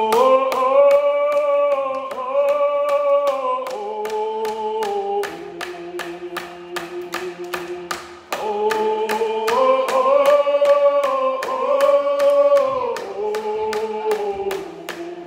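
A group of voices singing a song together to a steady hand-drum beat of about three strokes a second. The melody climbs, holds, then steps down to a low held note, and the same phrase begins again about eight seconds in.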